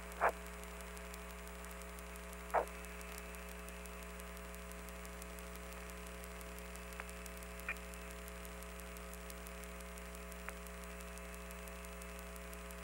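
Steady electrical hum of the Apollo air-to-ground radio channel, several constant tones with a hiss over them, broken by a few short blips.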